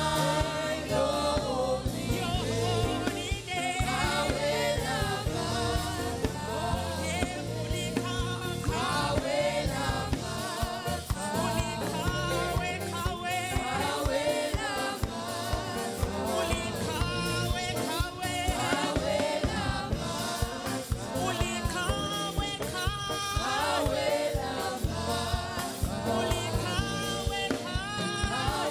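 Live gospel praise-and-worship singing: a group of voices sings together over a band with bass and a steady beat.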